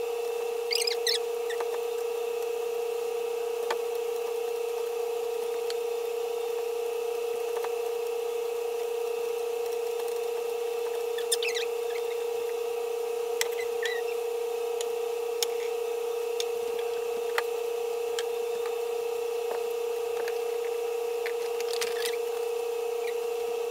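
A steady hum at one fixed pitch from a running room appliance. Over it come scattered light clicks and taps and a few short rustles, from objects being picked up and set down and a desk being wiped with a cloth, about a second in, in the middle and near the end.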